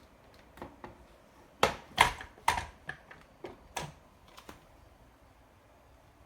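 A series of about a dozen hard clicks and knocks over some four seconds, the loudest three close together, as the plastic parts of a cordless cyclone stick vacuum are handled; the vacuum's motor is not running.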